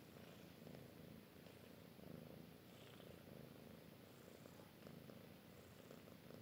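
A cat purring softly and steadily, the purr swelling and easing about every second and a half.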